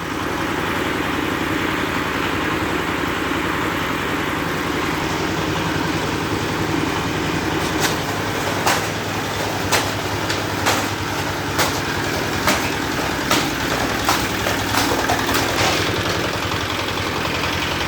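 Engine-driven bamboo-splitting machine running steadily; from about eight seconds in, sharp cracks come about once a second as the bamboo splits.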